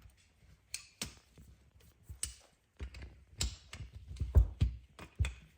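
Wrenches clicking and knocking against the threaded fittings of a tire-inflator hose's air chuck as the chuck is broken loose: a few scattered light clicks, then a busier run of clicks and knocks in the second half.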